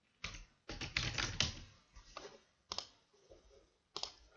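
Typing on a computer keyboard: a quick run of keystrokes about a second in, then a few single key presses.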